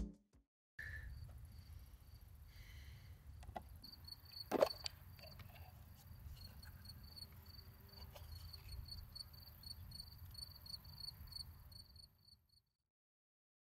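Open-field ambience: a low wind rumble with a run of high, evenly repeated chirps, and a sharp click about four and a half seconds in, the metal latch of a small wooden box being opened. It starts after a brief silence and cuts out near the end.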